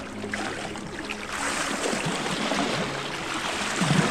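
Lake water lapping and washing against shoreline rocks. It grows louder about a second in, and a wave splashes over the rocks near the end.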